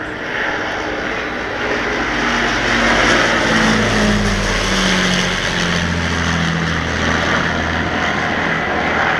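Full-size Avro Lancaster bomber's four Rolls-Royce Merlin V12 engines in a low pass overhead. The drone grows louder over the first three seconds, then drops in pitch as the aircraft goes past.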